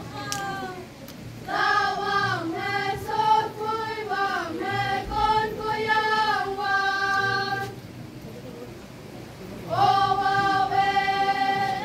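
A group of girls singing a traditional folk song in unison for a circle dance, in long phrases with held notes; the singing breaks off briefly about a second in and again for about two seconds near the end before starting a new phrase.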